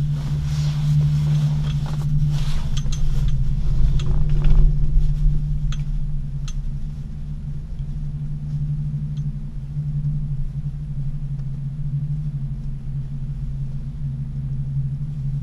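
Steady low hum and rumble inside a moving aerial cable-car gondola cabin as it rides the cable uphill. Scattered clicks and rustle in the first five seconds or so.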